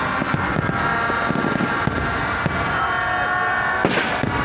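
Aerial fireworks going off: scattered bangs from bursting shells over a constant background din, with a sharper, louder bang about four seconds in.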